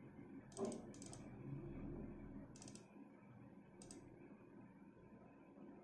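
Four faint computer mouse clicks: a pair close together about half a second in, then single clicks near three and four seconds, over a low room hum.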